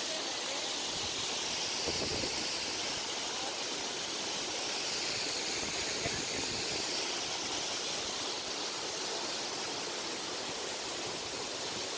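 A waterfall's rushing water: a steady, even hiss with no pitch or rhythm.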